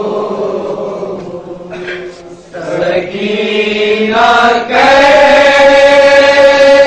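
Male voice reciting a nauha, an Urdu mourning lament, in a slow melodic chant, drawing out long held notes. It thins out briefly about two seconds in, then rises into a long, steady high note from about five seconds in.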